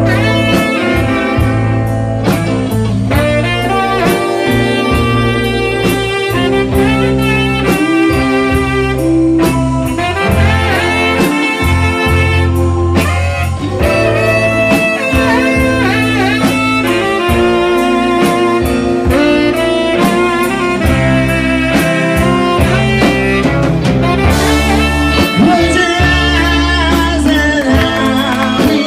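Live rock band with a saxophone solo over electric guitar, bass and drums: the sax plays a lead line with bending, wavering notes above a steady band groove.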